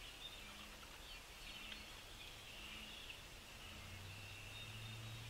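Small birds chirping and twittering faintly and continuously. A low steady hum comes in about two-thirds of the way through.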